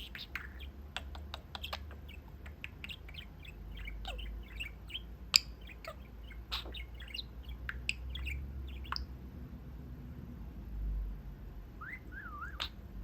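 Pet budgie chirping and chattering in a rapid string of short calls, then pausing and giving a brief warbling whistle near the end.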